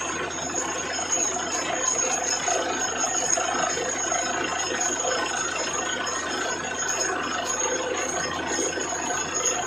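Truck-mounted borewell drilling rig and its air compressor running at the borehole: a steady, dense mechanical noise with a thin high whine over it.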